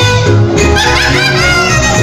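A huasteco trio playing live: the violin carries a melody full of sliding notes over the strummed chords of the jarana and the bass of the huapanguera.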